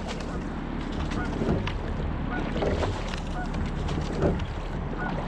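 Single rowing scull under way: water rushing along the hull and wind buffeting the microphone, with the knock of the oars at each stroke recurring every second or so. A few faint short chirps sound now and then over it.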